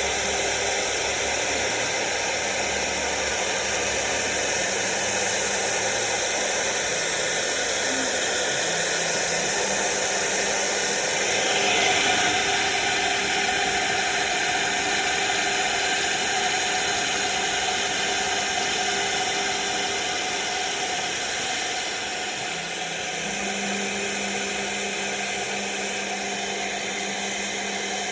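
CNC router spindle running, its solid carbide bit cutting 4 mm aluminium composite panel: a steady high hiss with held whining tones, briefly louder about 12 seconds in and slightly quieter near the end.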